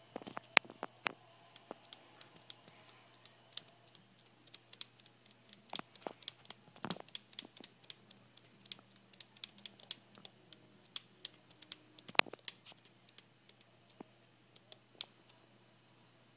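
A run of irregular light clicks and taps, a few sharper ones standing out, over a faint steady low hum.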